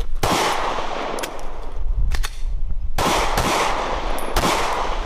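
A handgun fired in a rapid string of shots, irregularly spaced with some close pairs, each shot trailing off in echo.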